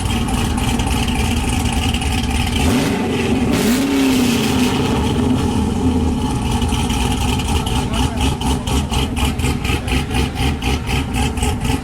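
Corvette V8 running with a choppy idle, blipped once about three seconds in with a quick rise and fall in revs, then settling into a rhythmic lope, the sign of a lumpy aftermarket-style cam.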